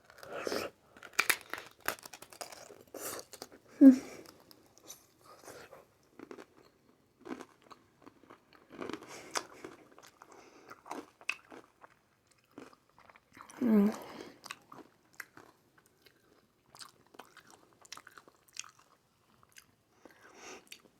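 Close-up eating sounds: irregular crunching bites and chewing of shrimp and scallop aguachile verde. Two short, louder vocal sounds from the eater break in, one about 4 seconds in and one about midway.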